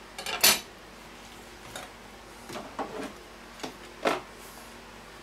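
Scattered short knocks and clicks of a chef's knife and utensils handled on a wooden cutting board and against a stainless steel tray, the loudest about half a second in.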